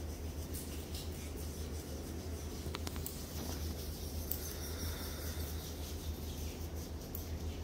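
Hands rubbing over the skin of a foot and calf in a massage: faint scratchy rubbing and a few light clicks over a steady low hum.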